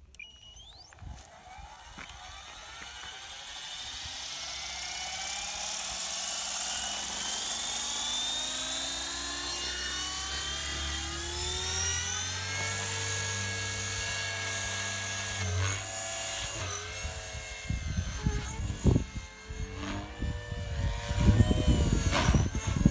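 Blade 360CFX electric RC helicopter's brushless motor and rotor spooling up, a whine that rises steadily over the first several seconds and then holds steady. From about two-thirds of the way in, the pitch swings quickly up and down with loud, uneven bursts as the helicopter manoeuvres in flight.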